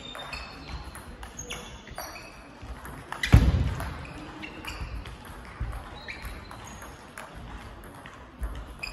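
Table tennis ball clicking off bats and table in a rally, a string of short sharp ticks. About three seconds in, a single heavy thump with a low boom stands out as the loudest sound.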